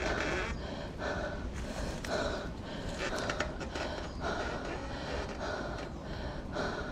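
A mountain biker breathing hard and fast in repeated gasps, from the effort of pedalling up a steep technical climb.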